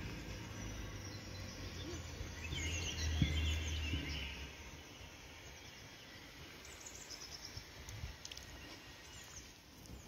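Songbirds chirping in the trees around a pond, a cluster of short chirps about three seconds in and thinner, higher chirps later. A low rumble from wind or handling noise on the phone's microphone runs under them and is heaviest in the first half.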